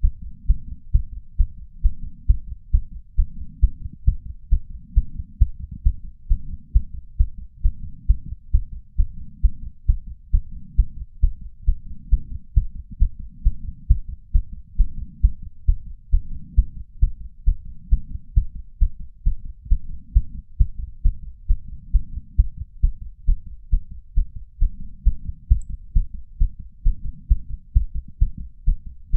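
A human heart beating fast and hard after exercise: rapid, evenly spaced deep thuds, about two beats a second. It is picked up through a small ceramic bowl with a lapel microphone.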